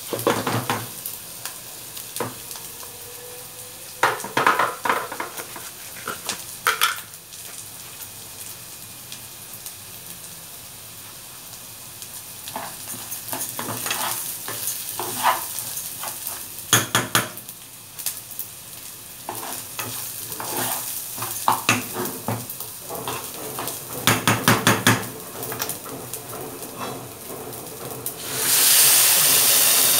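Food frying in a pot with a steady sizzle, and a spoon scraping and clinking against the pot in repeated bouts of stirring. Near the end, liquid poured from a saucepan into the hot pot sets off a sudden loud hiss.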